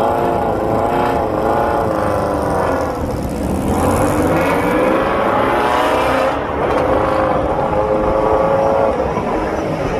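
Motorcycle engines running hard, revving and accelerating, their pitch wavering and gliding up and down.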